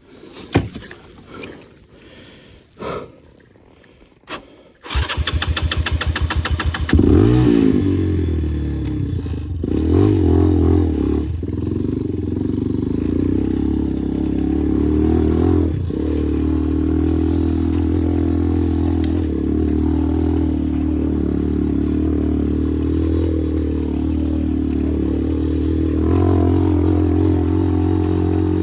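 A few knocks, then a motorcycle engine turns over rapidly for about two seconds, catches with a short rev, and settles into steady running with a couple of blips of throttle.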